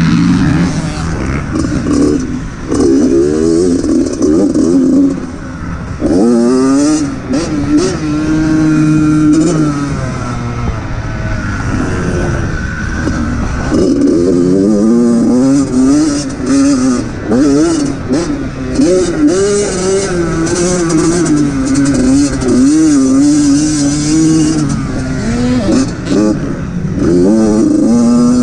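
Dirt bike engine heard from the rider's own bike, revving hard and dropping off again and again as it accelerates, shifts and slows through a lap. The pitch climbs in repeated rising sweeps, with sharp drops between them.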